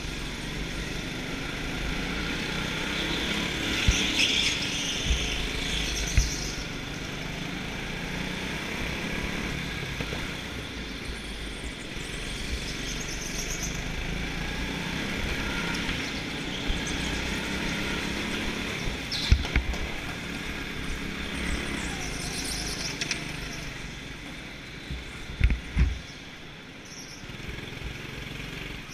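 Go-kart engine running steadily under way, with wind and rumble on a helmet-mounted camera. A few sharp knocks stand out, about four, six and nineteen seconds in and twice around twenty-five seconds.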